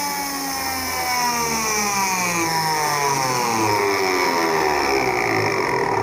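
Washing machine universal (brushed) motor running unloaded at high speed, a loud whine made of several tones that slide in pitch as it spins.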